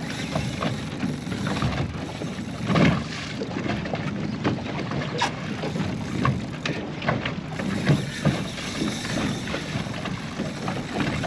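Water slapping against a small boat's hull, with wind buffeting the microphone: irregular splashes and knocks over a steady rush, the strongest about three seconds and eight seconds in.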